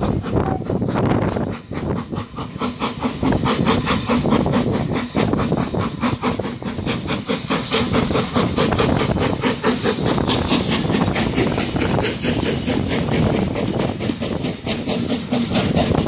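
BR Standard Class 4MT 4-6-0 steam locomotive 75078 passing under power, its two-cylinder exhaust beating in a fast, even rhythm over a steady hiss of steam. Near the end the coaches roll past behind it.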